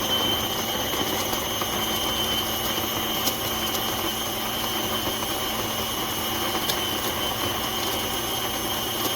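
Chefman electric burr coffee grinder's motor running steadily for a timed ten-second grind, with a constant high whine. Since a clunk a week ago it still runs but turns out only a tiny amount of grounds; the cause is unknown.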